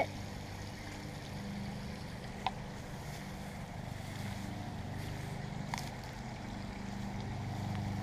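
Steady low hum of a distant motor or engine running, with two faint clicks, one about two and a half seconds in and one near six seconds.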